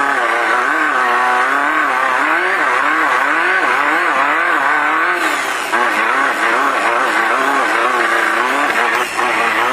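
Off-road race car's engine running hard, its revs rising and falling about twice a second as the throttle is worked over rough ground, over a steady rush of tyre and wind noise.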